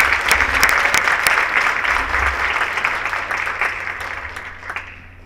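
Audience applause, many people clapping, dying away near the end.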